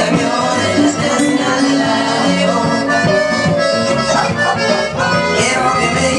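Loud Latin dance music played over a party DJ sound system, with a steady beat and held melody lines.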